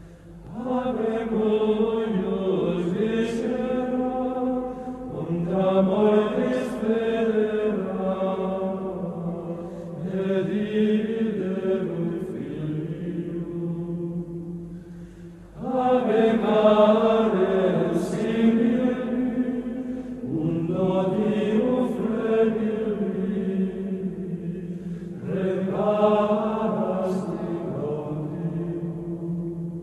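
Slow chanted singing as a soundtrack, in long sustained phrases of about five seconds each, separated by brief dips.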